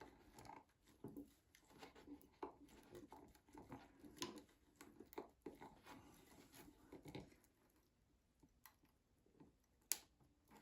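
Faint, scattered clicks and scrapes of a hand tool gripping and working a tiny nail out of a toolbox board, with one sharper click near the end.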